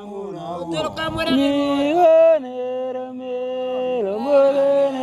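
Singing in the Otuho (Lotuko) language: a single voice gliding between notes and holding long, steady tones.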